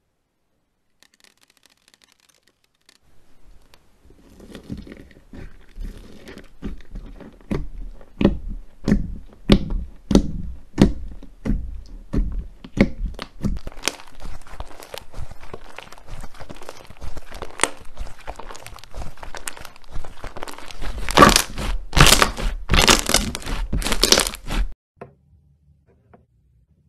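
White slime mixed with teal foam beads being squeezed and stretched by hand: sticky pops and crackles, at first about two a second, then denser, with the loudest crackling near the end before it stops suddenly.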